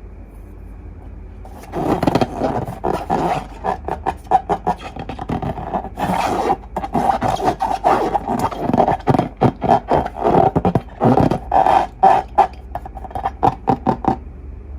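Long balloons and slime being handled: a dense, irregular run of rubbing, squeaking strokes that starts about two seconds in and stops shortly before the end.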